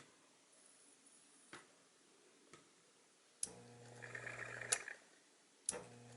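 Smith-Corona 5TE electric portable typewriter's power switch clicking as the lid interlock lever is worked by hand. After a couple of light clicks, a sharp click brings in the steady hum of the motor, which clicks off a little over a second later and clicks on again near the end. The owner suspects the switch needs contact cleaner or its lever needs adjusting.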